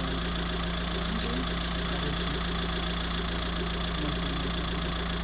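Car engine idling steadily, heard from inside the stopped vehicle, with a faint click about a second in.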